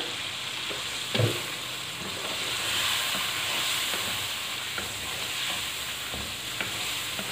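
Boneless chicken pieces sizzling in hot oil in a karahi and being stirred with a wooden spatula, which scrapes and clicks against the pan; the ginger-garlic paste has just gone in. A dull knock comes about a second in, and the sizzle grows louder from about two seconds in as the chicken is turned.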